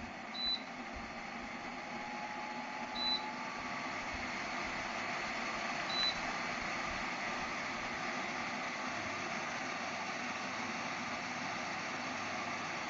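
Bladeless tower fan with a DC motor running, its air noise growing louder over the first few seconds and then holding steady. Three short, high beeps about three seconds apart from its controls, each followed by a rise in the air noise as the fan speed is stepped up.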